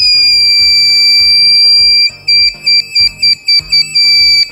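Small black buzzer sounding a loud, steady high-pitched tone, then from about two seconds in breaking into a quick run of short, uneven beeps. Background music with a beat plays underneath.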